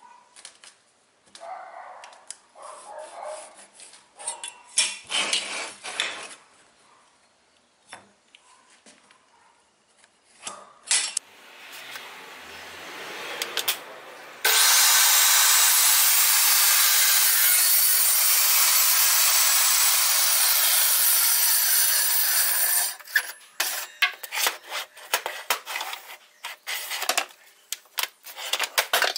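Portable table saw running and cutting a groove into a wooden board, a loud steady whir that starts abruptly and stops after about eight seconds. Before it, light clicks and rubbing of a pencil and metal square marking the board on a metal bench; after it, a string of sharp knocks as the board is handled.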